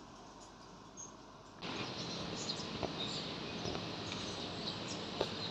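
Faint room tone that cuts about a second and a half in to outdoor ambience: a steady hiss with scattered short, high bird chirps, insects and a few sharp clicks.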